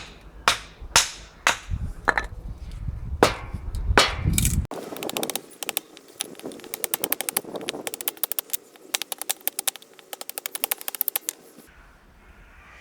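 A wooden mallet striking the back of a hatchet to split green oak: sharp knocks at first about twice a second, then a rapid run of many quick sharp knocks that stops shortly before the end.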